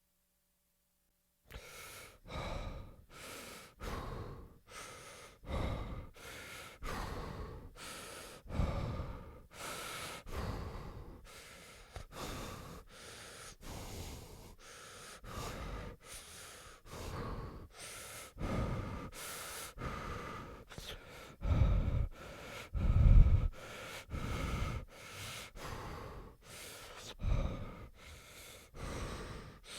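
A person breathing heavily in quick, rhythmic in-and-out breaths, about one and a half a second, starting after a second and a half of silence; a few breaths in the second half are louder.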